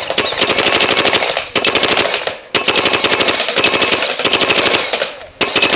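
Paintball marker firing rapid strings of shots, about a dozen a second: one string breaks off about a second and a half in, another starts a second later and runs until just before the end, and a third begins right at the end.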